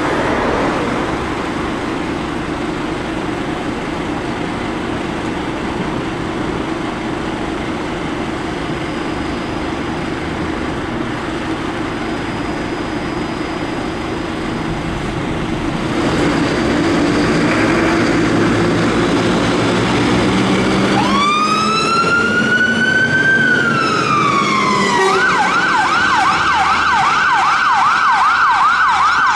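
A heavy vehicle's engine runs with road noise. About two-thirds of the way in, an emergency-vehicle electronic siren starts with one rising and falling wail, then switches to a fast yelp sweeping up and down about three times a second.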